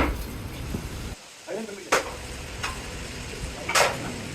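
Three sharp knocks, about two seconds apart, over a steady low rumble.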